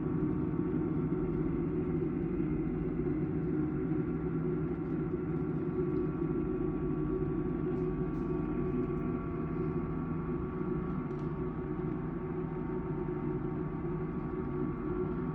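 Rinnai tankless water heater running with a steady hum, made up of several steady tones.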